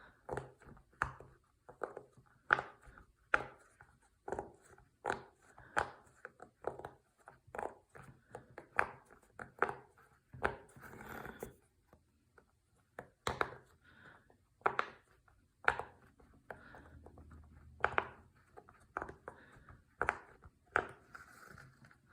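Silicone pop-it fidget toy bubbles being pressed one after another: a run of short, sharp pops about one or two a second, with a few pauses.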